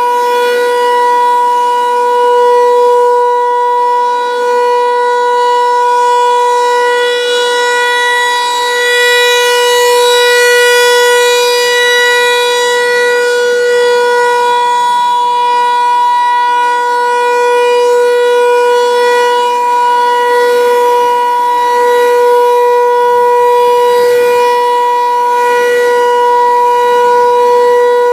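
Federal Signal 508 outdoor tornado warning siren sounding a test, holding one steady, loud tone at full pitch, with its volume swelling and fading slightly.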